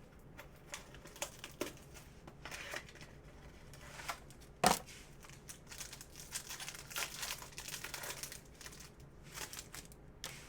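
Crinkling and rustling of trading-card packaging and cards being handled and torn open, with scattered small clicks and one sharp click a little before halfway.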